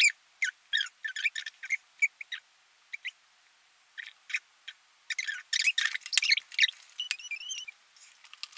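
Sound effects of a smartphone random-number app, heard through the phone's small speaker: a run of short, thin, high chirps and clicks as the number is drawn, with a brief warbling tone about seven seconds in.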